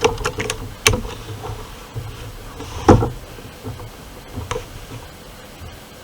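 A string of sharp clicks and knocks from an air rifle being handled while shooting at targets, the loudest about three seconds in and another just under a second in.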